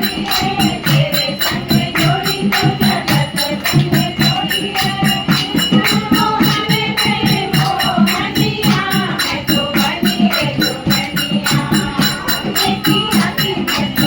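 Kumaoni folk song playing: a sung melody over a fast, steady percussion beat.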